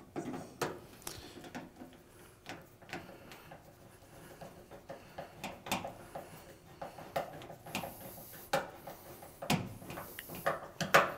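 Irregular clicks and light knocks of a nut driver and hands working the screws of a front-load washer's bottom access panel, with a louder knock near the end.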